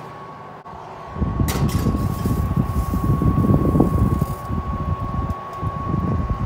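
A wire oven rack is slid in and a glass baking dish is pushed across it, making a loud, uneven low rumbling scrape with a clink about a second and a half in. A steady high tone sounds underneath throughout.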